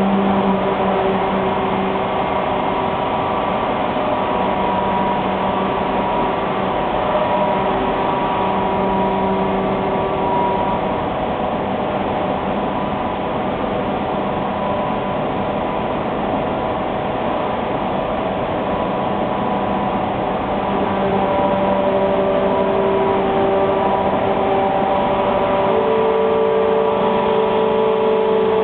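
Machinery of an AAC block cutting line running: a steady mechanical hum with several thin whining motor tones that come and go and change pitch, with a slight rise in loudness in the last few seconds.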